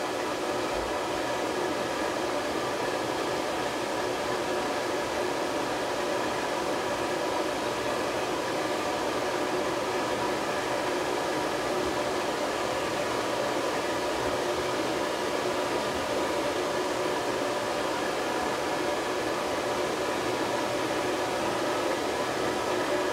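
Blow dryer running steadily on a dog's coat: a constant rush of air with a steady whine of several tones from its fan motor.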